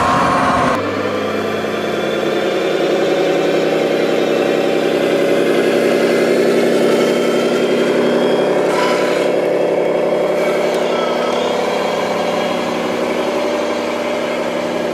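A truck-type engine running steadily, with an abrupt change in the sound about a second in.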